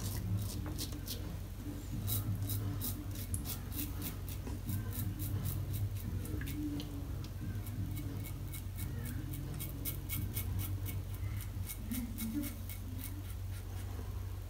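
Double-edge safety razor (Yaqi) scraping through day-old stubble around the lips in runs of quick, short strokes with brief pauses, over a steady low hum.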